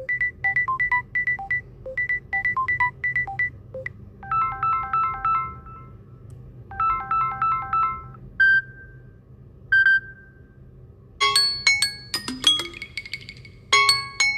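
Samsung Galaxy A34 ringtones playing one after another: short electronic tunes of bright beeping and chiming notes, each phrase repeated before a new tune starts. A beeping phrase plays twice, then a chiming phrase twice, then two single ringing notes, then a busier melody near the end.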